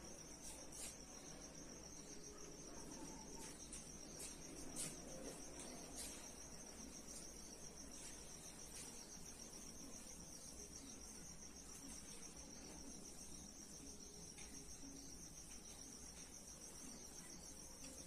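Faint, steady, high-pitched insect trill, finely pulsing without a break, over quiet room tone, with a few faint taps in the first six seconds.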